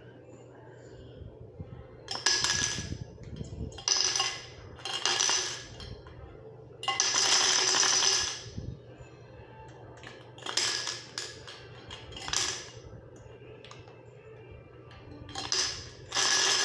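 Handfuls of steel nails dropped into an empty drink can, rattling and clinking against the metal in about seven separate bursts.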